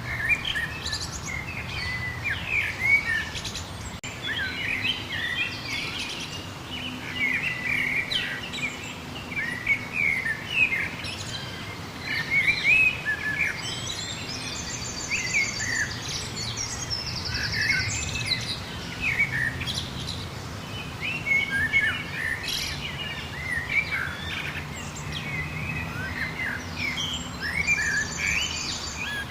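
A mixed chorus of many small songbirds chirping and calling over one another without a break. A fast, high trill sounds a few times around the middle and again near the end.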